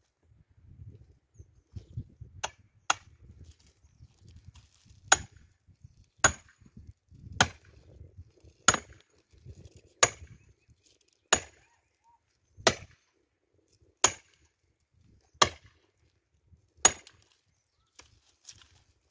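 Firewood being chopped with an axe: about a dozen sharp, evenly paced strikes, roughly one every second and a quarter, starting a couple of seconds in.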